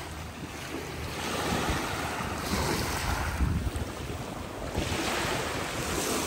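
Small waves breaking and washing over a pebble beach in rising and falling rushes, with wind buffeting the microphone.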